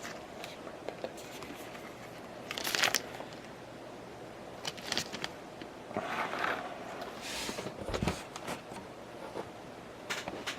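Baseball trading cards and their packaging being handled: scattered short crinkling rustles and light clicks, a few seconds apart.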